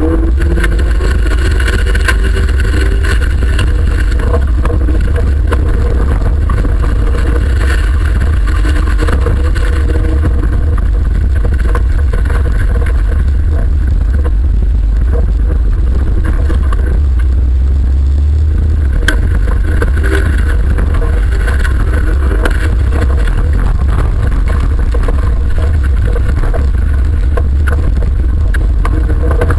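Autocross racing car's engine (over-1600 cc class) running hard through a dirt-track heat, heard from inside the cabin as a loud, continuous heavy rumble.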